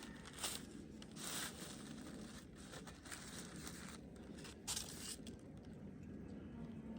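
Packaging rustling and crinkling in several short bursts while the flat-pack coop parts are unpacked and handled.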